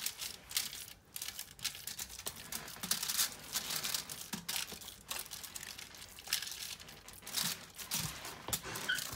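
Aluminium foil lining a baking pan crinkling and rustling in irregular bursts as hands press and pat raw meatloaf mixture into shape, with the soft squish of the wet ground meat.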